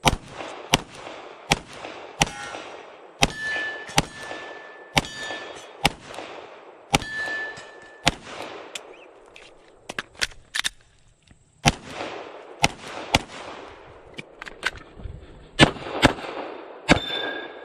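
Rapid 9mm pistol fire from a Glock 34 on a USPSA stage, shots coming about every half second to second with a short lull near the middle. After some hits, steel targets ring with a brief high tone.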